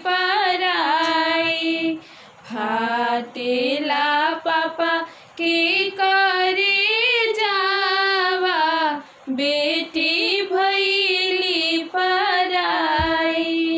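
Two women singing a Bhojpuri kanyadan folk song, unaccompanied, in long held phrases that waver and slide in pitch, with short breaks for breath.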